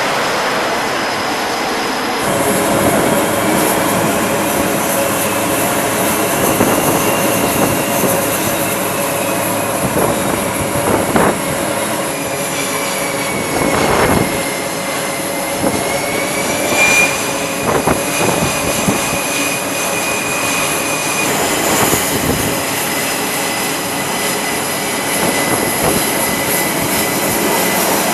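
Jet aircraft engines running on a carrier flight deck: a steady, loud roar with a high whine that dips and rises again about halfway through.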